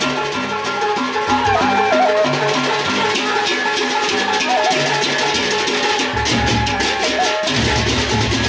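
A Lombok gendang beleq ensemble playing: many kenceng hand cymbals clash in a fast, tight rhythm over large gendang beleq drums, with gongs ringing and a wavering melody line on top. The deep drum beats thin out for a few seconds, then come back in strongly about six seconds in.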